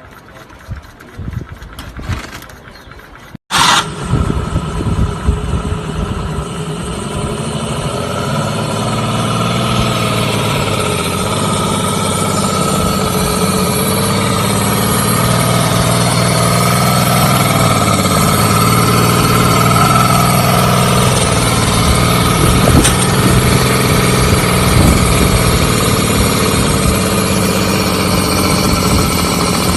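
Homemade 150cc V12 petrol engine, loosely patterned on the Tiger tank's Maybach V12, giving a few short bursts as it is started. After an abrupt break about three and a half seconds in it runs steadily, growing louder over the next several seconds and then holding.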